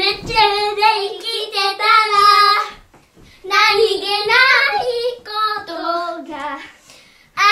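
Children singing a song together in high voices, in sung phrases with a short break about three seconds in.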